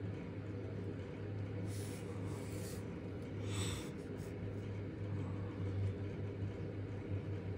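A steady low hum fills the room, and a person gives two short, hissy breaths through the nose, about two and three and a half seconds in.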